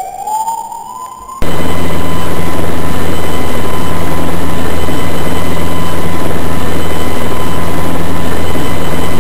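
A whine rising steadily in pitch, then about a second and a half in, a sudden very loud, steady, distorted roar like a helicopter or engine, held unchanging.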